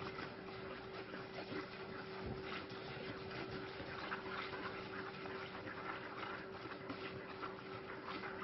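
Wire whisk stirring a liquid mixture in a pan, with light irregular clicks and scrapes against the pan and liquid swishing, over a steady hum.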